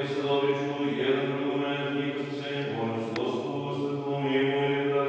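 Orthodox liturgical chanting of the wedding service: a voice singing long held notes over a steady low drone. A single sharp click sounds about three seconds in.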